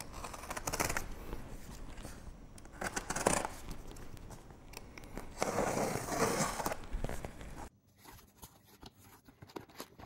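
Utility knife slitting the packing tape on a cardboard box, and the tape being torn and pulled back, in three noisy bursts of a second or so each.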